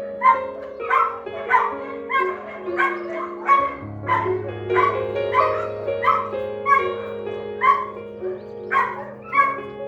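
A dog barking over and over, short sharp barks about every half second to second, over background piano music.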